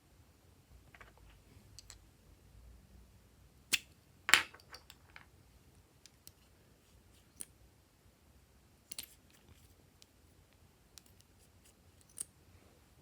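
Glossy slime being worked by hand, giving scattered sticky clicks and pops with quiet stretches between. The loudest is a short cluster of pops about four seconds in.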